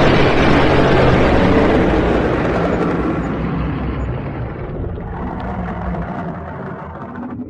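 Dragon roar sound effect: a long, rough roar over a deep rumble, loudest at the start and slowly fading away over several seconds.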